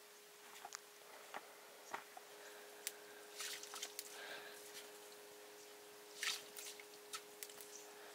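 Faint scattered clicks, drips and wet squishing of hands and utensils working with water, with short rustling bursts about three and a half and six seconds in, over a faint steady hum.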